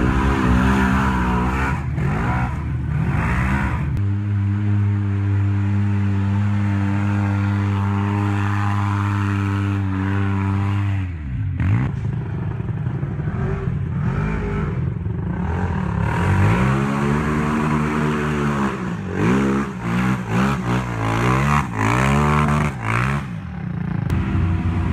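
Side-by-side UTV engine revving as it climbs a muddy trail. The engine is held at steady high revs for several seconds and drops off sharply about eleven seconds in. It then rises and falls again and again as the throttle is worked.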